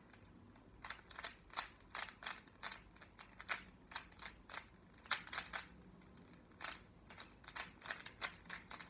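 Rubik's Cube layers being turned quickly by hand: rapid plastic clicking and clacking, several turns a second, with a brief pause about six seconds in. These are the final moves of a solve.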